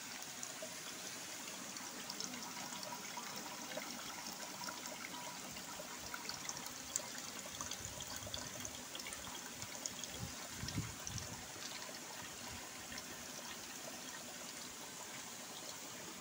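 A thin stream of liquid trickling steadily from a steel outlet spout on a condenser's collecting box into a partly filled plastic bucket, with small scattered drips and splashes.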